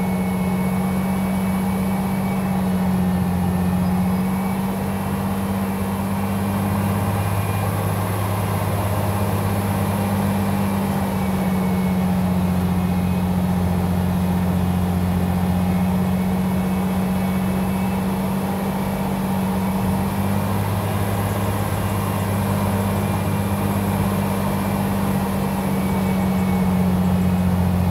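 Freshly rebuilt Ford 300 cubic-inch (4.9 L) inline-six in a Ford F-series pickup running steadily on its first start, its pitch shifting slightly a couple of times.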